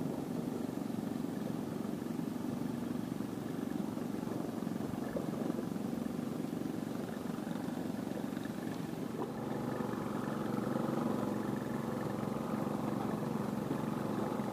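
An engine running steadily at an even pitch, a little louder from about ten seconds in.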